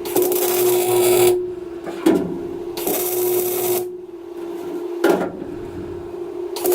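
MIG welder laying tack welds on an 18-gauge sheet-steel floor panel: three crackling bursts of about a second each, with a hammer tap on the panel between tacks. A steady hum runs underneath.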